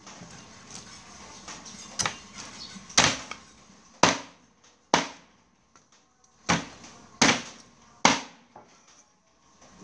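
Meat cleaver chopping through a raw duck carcass onto a wooden chopping block: a few light knocks, then about seven sharp chops, roughly one a second.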